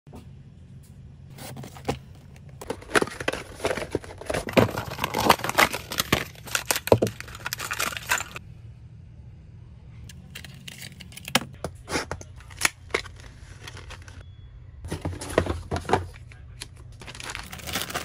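Packaging for PC parts being unwrapped and handled: crinkling and rustling plastic with tearing, clicks and taps. It is densest in the first half, goes briefly quiet about eight seconds in, then comes back in sparser clusters of clicks and rustle. A faint low hum runs underneath.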